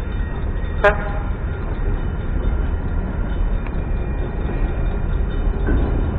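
Freight train of empty centerbeam flatcars rolling through a grade crossing, a steady low rumble, with one short horn-like toot about a second in.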